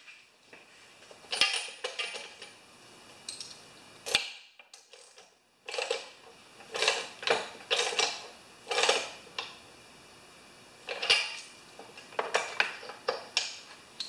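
Metal hand tools and engine parts clinking and scraping as a small mower engine is put back together, with a run of short scraping strokes about two a second midway.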